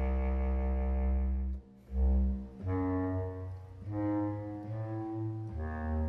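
Sampled bass clarinet from the Spitfire Symphonic Woodwinds library playing in its low register. A long held note ends about one and a half seconds in, followed by a string of shorter separate notes at changing pitches, each about half a second long.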